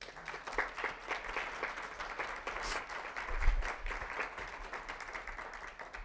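Audience applauding: many hands clapping that begins at once and dies away near the end. A low thump is heard about three and a half seconds in.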